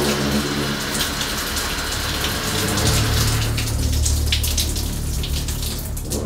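Water from an overhead rain shower head spraying down onto a person in a glass shower cabin, a steady hiss that stops near the end, with a low steady hum underneath.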